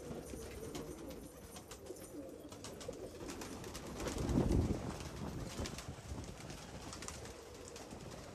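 A loft full of domestic pigeons cooing together, with short wing flaps as birds take off. About halfway through comes a louder, low-pitched burst.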